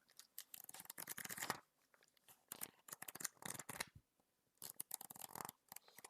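Paper pages of a journal being handled and turned, crisp rustling in several short spells with brief pauses between them.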